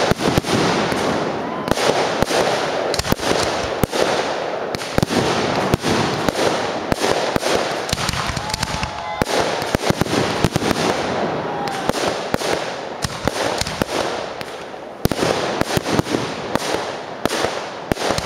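Fireworks display: a dense, continuous barrage of sharp bangs and crackles from bursting aerial shells, with a brief lull about fifteen seconds in.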